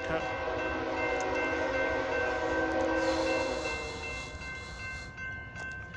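BNSF diesel freight locomotive's air horn sounding one long, steady chord of several notes, fading out about five seconds in.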